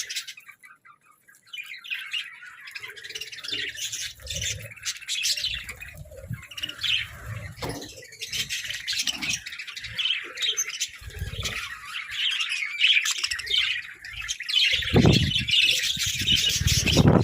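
A flock of budgerigars chirping and chattering, a dense run of rapid, overlapping chirps and squawks. There is a short near-silent gap about a second in, and a few dull thumps near the end.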